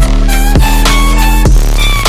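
Instrumental electronic dance music: heavy sustained bass and synth chords under a short synth melody, with a few kick drum hits.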